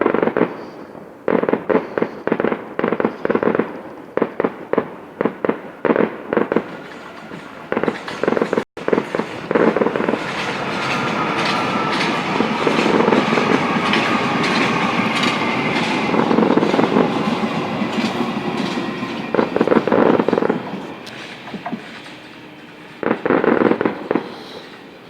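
Fireworks going off in rapid, crackling series of bangs. For about ten seconds in the middle a steady rushing noise with a faint slowly falling tone takes over before the bangs return.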